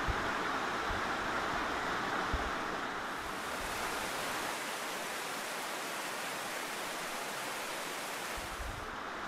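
Fast-flowing small river rushing over rocks: a steady hiss of white water. About three seconds in, a brighter, hissier stretch of rushing water takes over until near the end.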